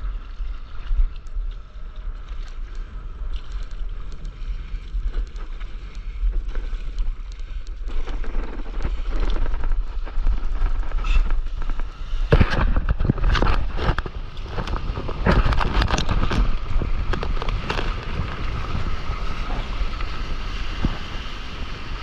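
Wind buffeting the microphone over water lapping at a stand-up paddleboard. From about eight seconds in, the splashing grows louder, with a run of heavy splashes, and foaming whitewater from a small breaking wave is around the board near the end.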